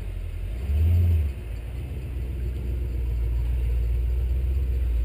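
Off-road competition truck's engine revving under load as it climbs a pile of broken concrete: a louder surge about a second in, then a steady low rumble.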